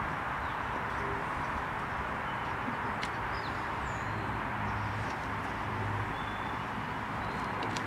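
Steady outdoor ambience, an even hiss, with a few faint short bird chirps and light clicks.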